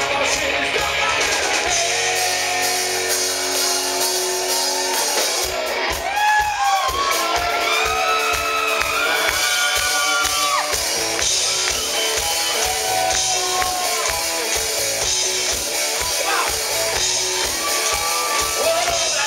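Live rock band playing loud: electric guitars over drums, with a steady beat that comes in about five seconds in.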